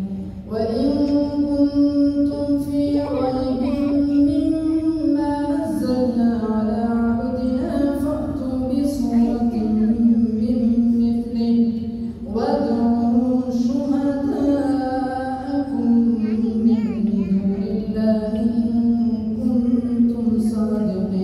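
Imam's melodic Quran recitation aloud during the Maghrib congregational prayer: one male voice chanting long, drawn-out phrases, with a break between verses about 12 seconds in.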